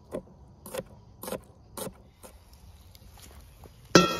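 A chef's knife chopping garlic on a wooden cutting board: four sharp taps about half a second apart. Near the end a metal frying pan clanks down onto a metal grill grate and rings briefly, the loudest sound here.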